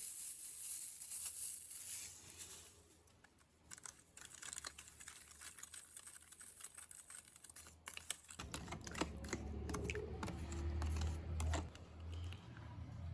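Sizzling in a pan fades out over the first couple of seconds, followed by a run of light clicks and taps. A low hum comes in about eight seconds in.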